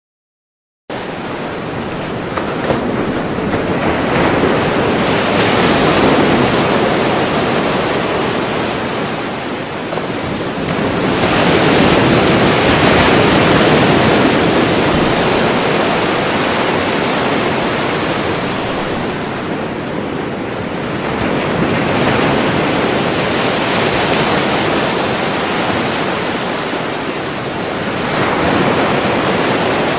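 Ocean waves breaking: a continuous wash of surf that swells louder and eases off again every several seconds as each wave comes in. It starts about a second in.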